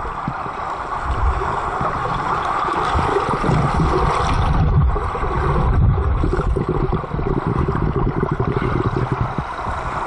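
Muffled churning and rushing of water heard from below the surface of a swimming pool, with the turbulence of children kicking and stroking past the camera.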